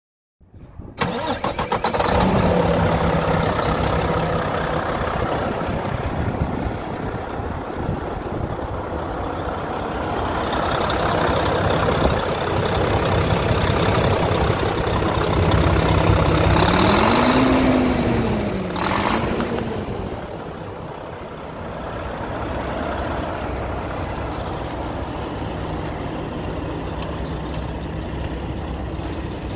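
Mack MP8 inline-six diesel engine cranked by the starter and catching, then running steadily. About two-thirds of the way through its pitch rises and falls twice, with a short hiss near the second rise. It then settles back to a slightly quieter idle.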